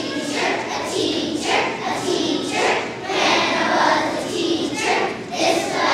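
A choir of young children singing together.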